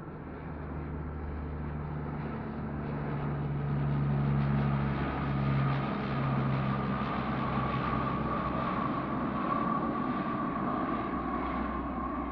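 Twin-engine Convair propeller airliner passing low on final approach, its engines and propellers droning with a steady high whine over a low hum. The sound swells as it comes closest about four to six seconds in, and the low tones drop slightly in pitch as it goes by.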